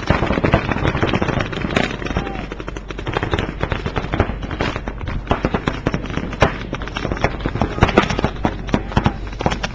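Paintball markers firing rapid strings of shots from several players at once, a dense run of sharp pops, many a second, that overlap and never stop.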